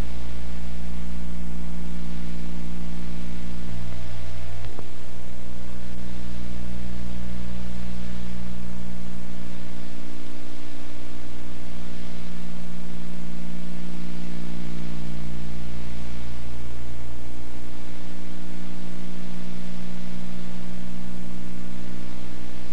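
Steady electrical hum with a buzz of several pitches over loud hiss, the noise of an old videotape transfer. It stays level throughout, with a small shift in the low hum about five seconds in.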